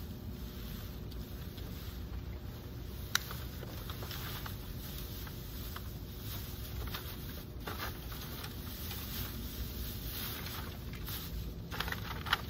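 Plastic bags and trash rustling and shifting as they are handled inside a metal dumpster, with scattered small clicks and one sharp click about three seconds in, over a steady low rumble.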